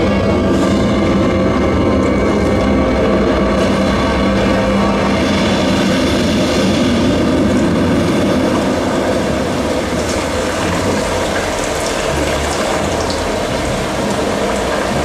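Show soundtrack played over outdoor loudspeakers: a loud, continuous rumbling drone with sustained tones layered through it, easing slightly in loudness about ten seconds in.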